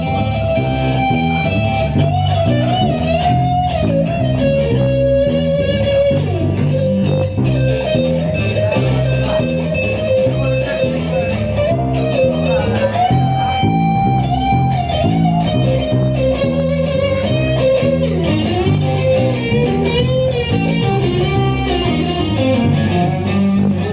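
Live blues band playing an instrumental passage on electric guitars over a steady, rhythmic bass line. A lead line of held notes with pitch bends runs over the top.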